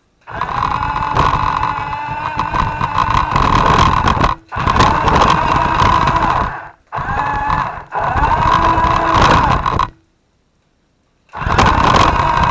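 RC truck's electric motor and gearbox whining under throttle in bursts: a run of about four seconds, then two shorter runs, each stopping abruptly, then a second or so of silence before it starts again near the end.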